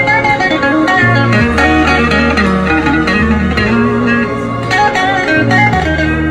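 Electric guitar played through a small portable amplifier: a run of lead melody notes and bends over a sustained low bass line that changes about once a second.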